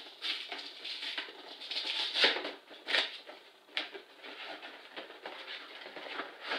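Cardboard box being opened by hand: flaps and packaging rustling and scraping, with a few sharp snaps. The loudest snaps come about two seconds in and again near three seconds.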